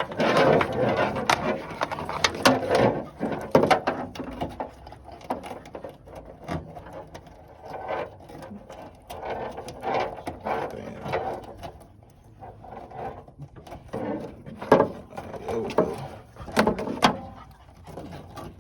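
Irregular clicks, rattles and rustling of objects being handled and moved about, in uneven bursts with short pauses, loudest in the first few seconds.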